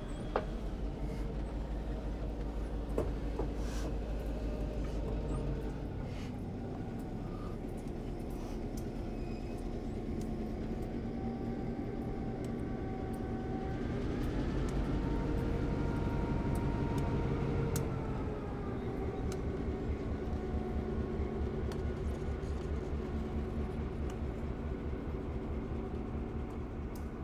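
Diesel locomotive's engine running as it moves slowly past, hauling a dead steam locomotive. Its note rises about halfway through and eases back down a few seconds later, with occasional sharp clicks.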